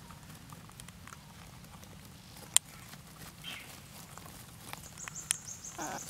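Parakeets and their chicks shuffling in a straw nest: scattered small taps, one sharp click about two and a half seconds in, and short high-pitched calls near the middle and the end.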